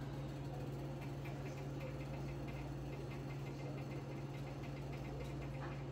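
Steady low electrical hum in a kitchen, with faint rapid crackling starting about a second in from a pot of white rice scorching on the stove, its heat set too high.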